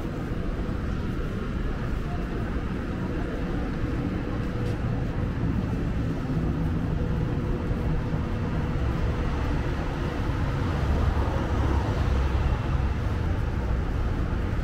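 Car engines running in street traffic, a low rumble that grows louder over the second half.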